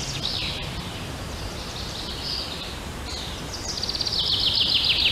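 Small songbirds chirping in quick, falling trills over a steady background noise, growing louder near the end.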